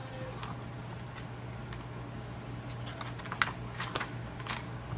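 Paper rustling as a paperback book's page is turned and smoothed flat by hand, with a few soft crinkles and taps about three to four and a half seconds in, over a faint steady hum.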